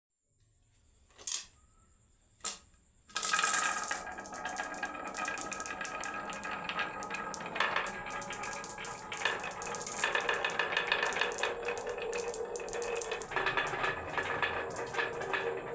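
Glass marbles rolling and clattering down a wooden marble run: two single clicks, then from about three seconds in a dense, continuous rattle of knocks with a faint ringing.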